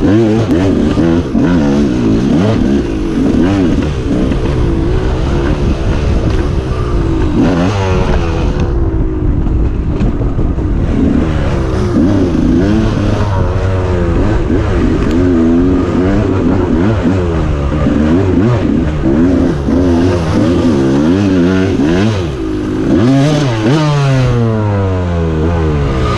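Two-stroke dirt bike engine revving up and down while being ridden, its pitch rising and falling with each throttle change. Near the end it winds down in one long falling sweep as the throttle is rolled off.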